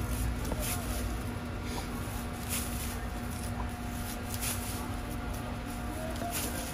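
Kitchen knife slicing strips of rind off a netted melon: several short cutting sounds spread a second or two apart, over a steady background hum.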